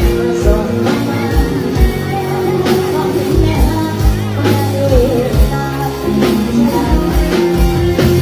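Live band music from a mor lam concert stage, with a steady kick-drum beat under held keyboard-like tones.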